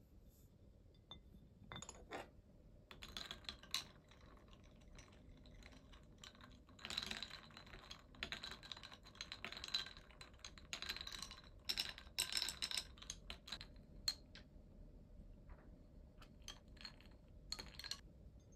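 Ice cubes clinking against a tall glass as an iced latte is stirred: a long run of soft, quick clinks with a faint ringing of the glass, thinning out to a few scattered clinks near the end.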